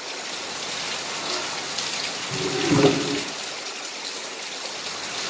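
Steady rain falling, an even hiss, with a brief louder sound near the middle.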